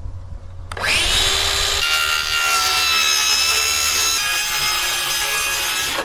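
Handheld power tool cutting: the motor whines up to speed about a second in and runs under load for about five seconds, its pitch sagging slightly, then stops.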